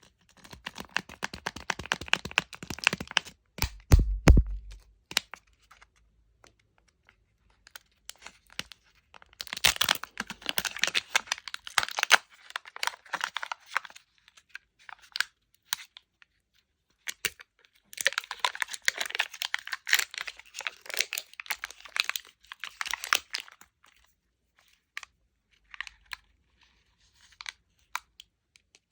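Plastic candy wrappers crinkling and tearing open in several bursts of rustling, with a couple of heavy knocks about four seconds in and a few small clicks near the end.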